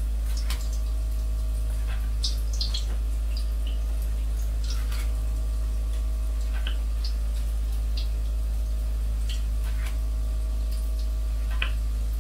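Crescent-roll dough balls frying in a skillet of hot oil: scattered short pops and crackles over a steady low hum.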